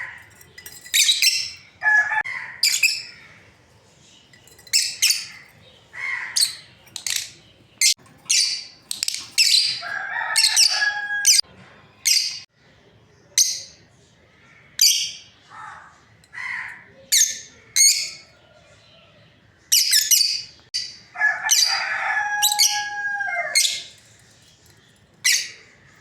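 Lovebirds chirping: an irregular string of short, shrill chirps and squawks, with a few longer pitched calls about ten seconds in and again around twenty-two seconds.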